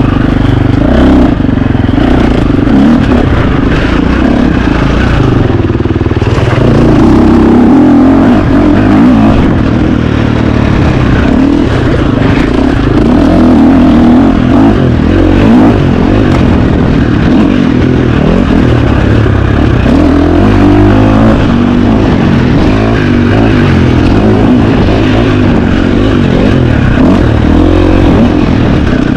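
KTM 350 XC-F dirt bike's single-cylinder four-stroke engine running hard, its pitch rising and falling as the throttle opens and closes, with scattered knocks and clatter.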